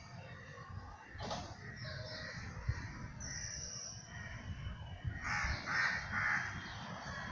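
Crow cawing: one harsh call about a second in, then three quick caws in a row about five seconds in.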